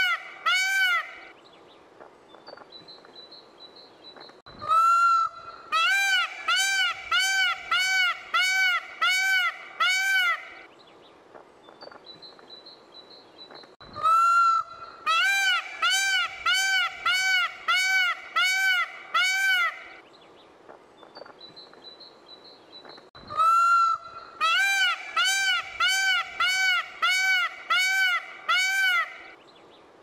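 Indian peafowl (peacock) calling: three series of loud honks, each a longer opening call followed by a run of about eight short calls that rise and fall in pitch, with pauses between the series. Peacocks use this honking call to attract females.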